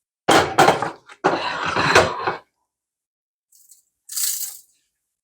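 Crackling, crinkling handling noise in two loud bursts over the first two and a half seconds, then a shorter, higher rustle a little after four seconds, as seasoned butter is rubbed into a raw turkey by hand.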